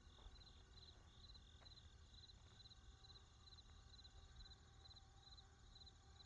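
Near silence, with faint high chirps repeating evenly about every third of a second, typical of a chirping insect.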